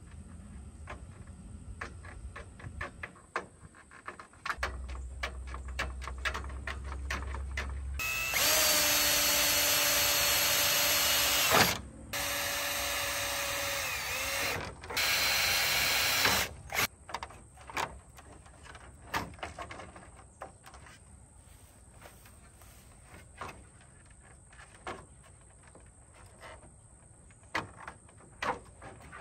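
Ridgid cordless drill running in three bursts, the first the longest and the second quieter, drilling mounting holes through the plastic grille shell; its whine dips as it slows at the end of a run. Before it, light scratching and clicking of a screw marking the hole spots on the plastic, and afterwards scattered taps of plastic parts being handled.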